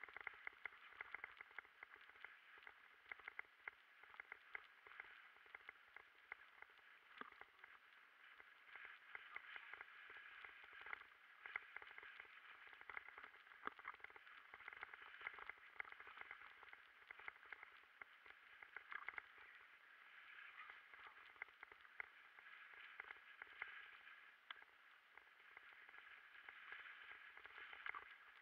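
Faint, muffled ticking and knocking from a mountain bike jolting over a rough dirt trail, heard through an action camera's housing over a steady hiss.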